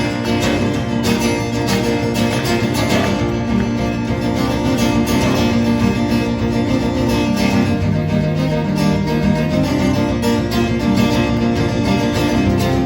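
Live band playing the instrumental intro of a folk song, led by strummed acoustic guitar.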